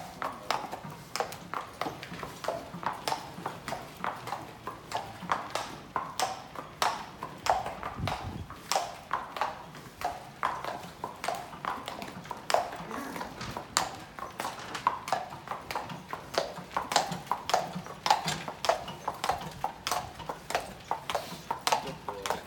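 Horse's hooves clip-clopping in a steady, even rhythm of about three hoofbeats a second.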